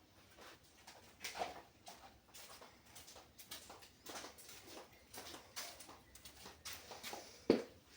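Faint, irregular taps and knocks, with the loudest knock about seven and a half seconds in.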